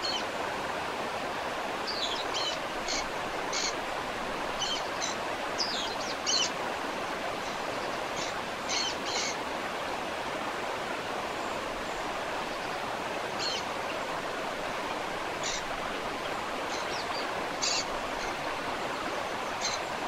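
Steady rush of a waterfall, with short high bird chirps coming in quick clusters over it, thickest in the first half and sparser later.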